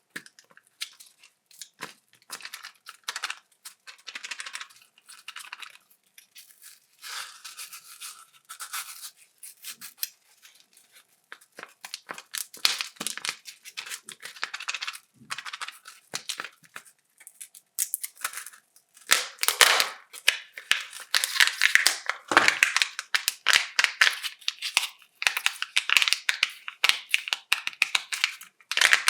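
Wrappers of Kinder chocolate eggs being crinkled and torn open by hand, a dense run of short crackling rustles that gets busier and louder about two-thirds of the way through.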